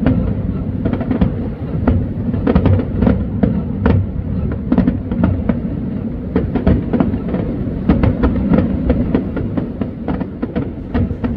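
Aerial fireworks going off in a rapid, irregular string of booms and crackles over a steady low rumble.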